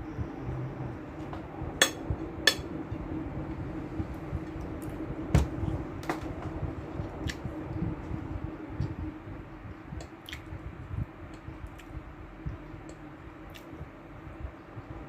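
Fork and knife clinking and scraping on a plate while eating. Two sharp clinks come about two seconds in, then lighter scattered clicks, over a low steady hum.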